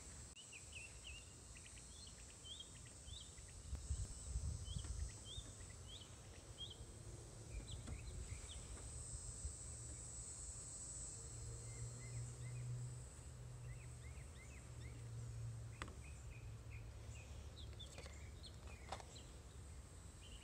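Faint outdoor ambience: a steady high insect drone with scattered short bird chirps over a low rumble. A few sharp clicks come in the second half.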